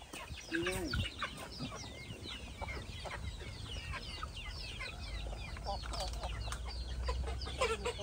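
Chickens clucking, with many short high calls overlapping throughout.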